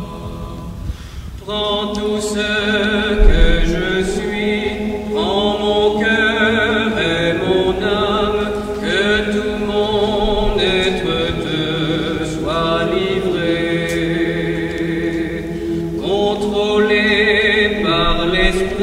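A hymn sung slowly, each note long and held with vibrato, each phrase sliding up into pitch at its start, and a new phrase beginning about every three to four seconds.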